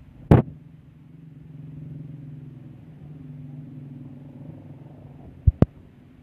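A motor vehicle engine running, a low steady hum that swells and eases over a few seconds. A sharp click comes just after the start and two quick clicks near the end.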